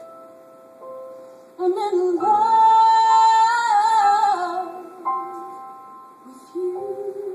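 A woman singing with piano accompaniment: after a few piano notes she holds one long high note for about three seconds, wavering in pitch as it ends. The piano carries on alone, and she starts singing again at a lower pitch near the end.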